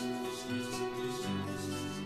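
Soft acoustic instrumental background music with held notes, moving to a new, lower chord a little past a second in.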